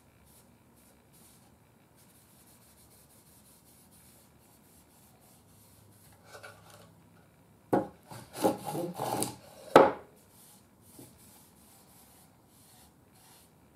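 Felt pad wiping stain onto a small wooden radio cabinet: faint, quick rubbing strokes, then a louder spell of rubbing and handling about eight seconds in that ends with a sharp knock.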